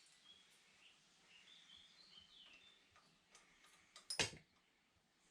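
Near silence with faint bird chirps, broken by a single sharp knock about four seconds in as a part is brought into position on the engine.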